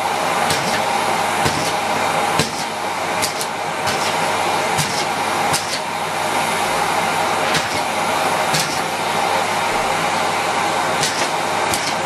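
Miele Complete C3 PowerLine canister vacuum running steadily at full suction, its bare hose wand picking up broken biscuit pieces from carpet. The pieces click and rattle up the hose at irregular moments.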